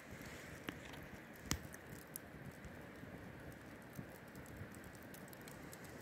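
Open fire burning a synthetic riding suit, crackling: a steady low hiss with scattered sharp pops and ticks, the loudest about a second and a half in.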